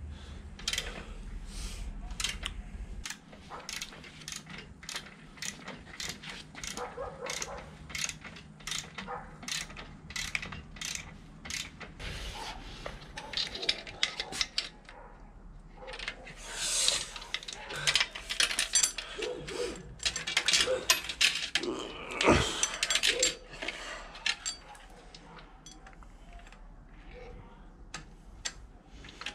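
Metal clicking from hand tools and a bicycle drive chain being worked at the rear wheel of a motorized bicycle. The clicks come in an even run for the first dozen seconds, then turn into louder, irregular clinks and rattles.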